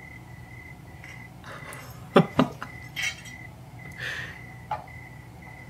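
A metal key being picked up from beside a flowerpot: two sharp metallic clinks a little over two seconds in, followed by softer handling noises.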